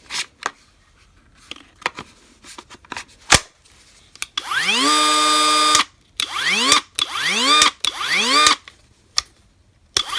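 Hyper Tough 20V brushless 3-inch cordless cut-off tool: a few handling and switch clicks, then about four seconds in the motor spins up with a rising whine, runs for about a second and a half and stops, and is then pulsed in several short bursts, each spinning up and cutting off.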